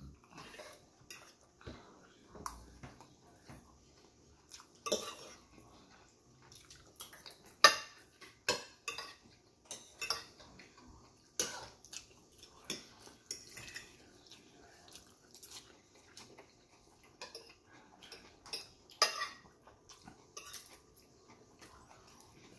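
Metal fork clinking and scraping against a ceramic plate as food is scooped up, in short irregular clicks, the loudest about eight seconds in.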